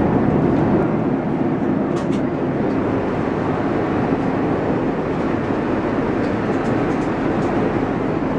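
Steady airliner cabin noise inside a Boeing 787-8 with Rolls-Royce Trent 1000 engines: an even rush of air and engine hum, with a faint click about two seconds in.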